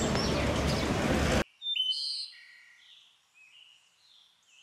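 Small birds chirping over a steady outdoor rush of background noise; the noise cuts off suddenly about a second and a half in, leaving only a few high bird chirps that fade away.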